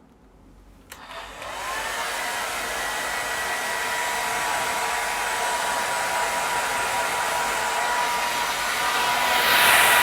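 Hair dryer switched on with a click about a second in, spinning up within half a second to a steady blowing rush with a thin motor whine over it. It gets louder and hissier near the end.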